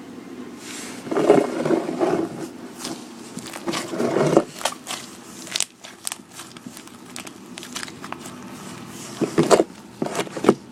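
Slime being mixed and squished: irregular sticky clicks and wet squelches, with louder bursts about a second in, around four seconds in and near the end.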